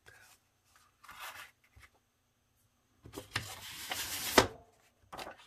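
Paper and cardstock rustling and sliding as sheets are handled on a cutting mat: a brief scrape about a second in, then a longer, louder rustle from about three seconds in that ends in a sharp crackle.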